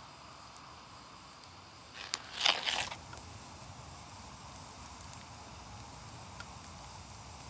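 Fire crackling, with a short cluster of loud pops and snaps about two seconds in and a faint single snap later over a low steady background.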